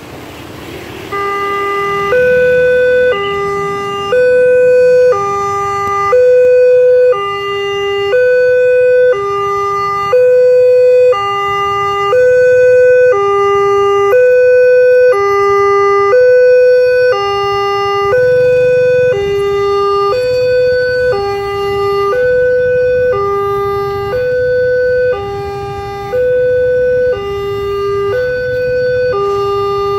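Electronic warning alarm of a railway level crossing sounding, a two-tone high-low signal alternating about once a second, starting about a second in.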